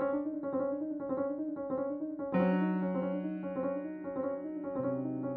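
Piano music: a quick, evenly repeated figure of notes about four a second, with a held bass note struck about two seconds in and a lower one near the end.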